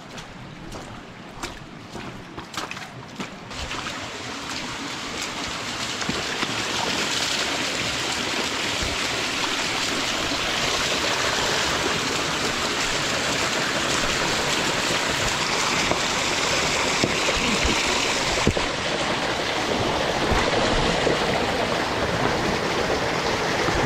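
Creek water running and splashing through a narrow sandstone slot, with a few knocks or steps on rock in the first few seconds; after about three seconds the water becomes a steady, louder rush.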